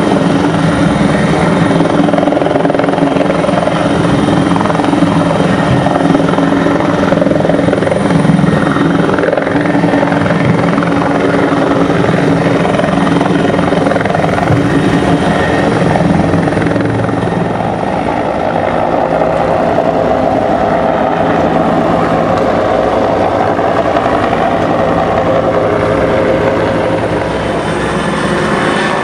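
Helicopter hovering low over the water, its rotor and turbine engine running loudly and steadily. The pitch of the drone shifts about two-thirds of the way in.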